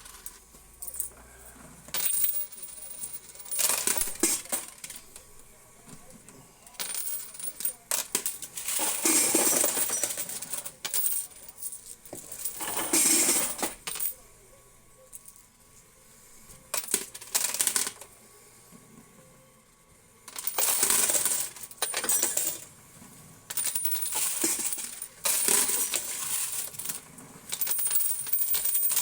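Quarters and playing chips clattering in a coin pusher machine: repeated bursts of coins dropping and spilling, each lasting a second or two, with quieter gaps between.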